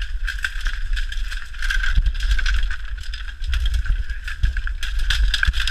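Bamboo canes rustling, clicking and snapping against a body-worn camera as someone pushes through a dense bamboo thicket. Underneath is a heavy low rumble of the camera being jostled.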